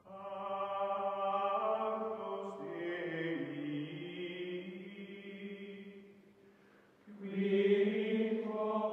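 Outro music of chant-like choral voices holding long sustained chords; it fades away about six seconds in, then comes back louder about a second later.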